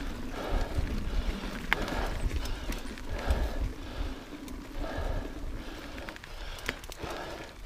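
Mountain bike rolling fast over a wooden plank boardwalk, tyres and frame rattling and knocking over the slats, then running onto a dirt trail near the end. A steady low rumble and scattered sharp clicks and knocks from the bike run throughout.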